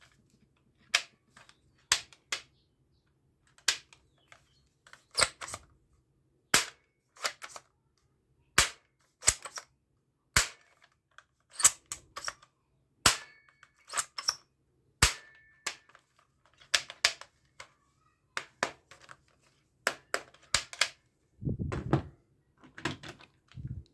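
Airsoft pistol firing single shots, a sharp crack about once a second at an uneven pace. Two dull low thumps come near the end.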